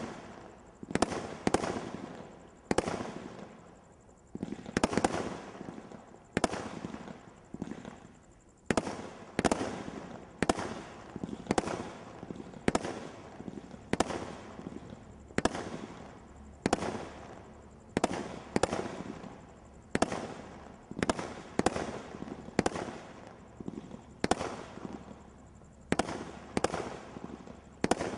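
Brothers Pyrotechnics 'Real Steel' Category 3 combination roman candle firing shot after shot, about one to two a second. Each shot is a sharp report that fades quickly before the next.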